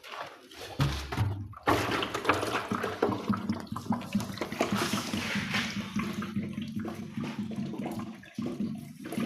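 Water splashing and pouring over the freshly built walls of a room, wetting them to cure the cement so it does not crack. It starts up strongly about two seconds in and goes on unevenly.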